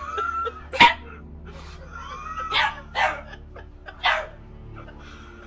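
A frightened dog whining and then giving three short yelping barks. A single sharp crack about a second in is the loudest sound.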